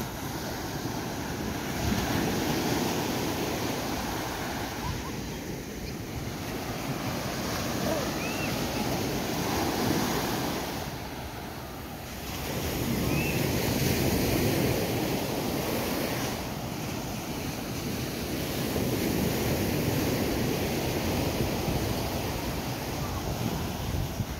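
Waves washing onto a sandy beach, the surf swelling and easing every few seconds, with wind buffeting the microphone.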